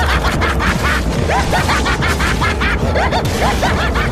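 A young man's manic laughter, a quick run of loud 'ha' syllables, over a steady low rumble.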